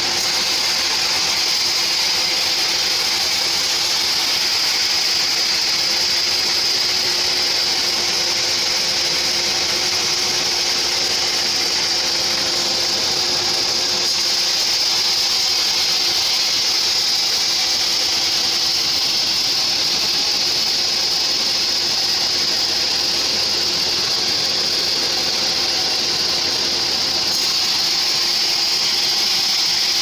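Sawmill band saw ripping lengthwise through a sengon jowo log: a steady, even high-pitched hiss of the blade cutting wood over the motor's running hum.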